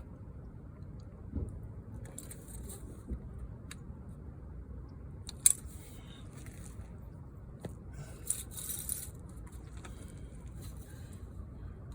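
Intermittent scraping and sharp clicks of metal window screen mesh and its retaining cord being worked into a window frame by hand, with a louder click about halfway through and a run of scratchy scrapes a little later.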